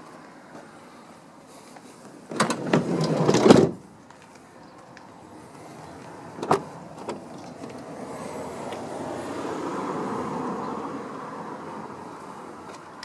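A car's sliding side door rolling shut along its rail with a rattle and clicks, ending in a latching thud about two and a half to three and a half seconds in. About three seconds later the front door handle is pulled and its latch releases with a single sharp click, followed by a soft swelling noise as the door is opened.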